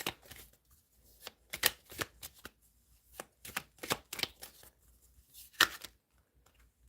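Tarot cards being shuffled and handled by hand: irregular sharp flicks and slaps of cards, the loudest a little over halfway through.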